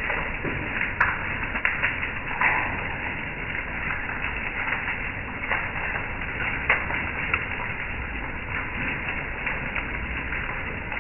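Hail and heavy rain pelting a wooden deck and patio furniture: a steady hiss of falling precipitation with scattered sharp clicks of hailstones striking, a few louder ones about a second in, two and a half seconds in and near the middle.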